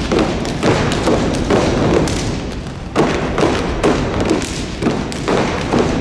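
Step team stomping in unison on a stage floor: a run of heavy thuds in a driving, slightly uneven rhythm, about two a second.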